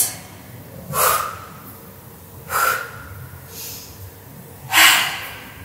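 A woman breathing out hard with the effort of single leg drops: four short, forceful exhalations about a second to a second and a half apart, the third faint and the last the loudest.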